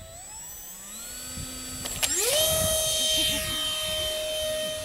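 Radio-controlled model airplane's motor spooling up: a sharp click about two seconds in, then a whine that climbs quickly in pitch and holds a steady high tone with a rushing hiss as the plane launches and climbs.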